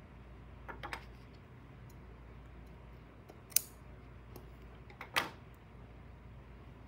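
Metal scissors handled while cutting yarn: a few light clicks about a second in, a sharp click about three and a half seconds in, and a louder knock near five seconds as the scissors are set down on the wooden tabletop. A low hum lies underneath.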